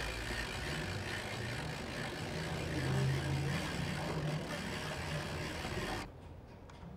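Steady mechanical whirring with a low hum, typical of the hand crank of a wind-up clockwork generator being wound, stopping abruptly about six seconds in.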